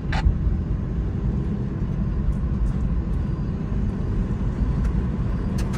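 Steady engine and road noise heard from inside a moving vehicle's cab, with a few faint ticks near the end.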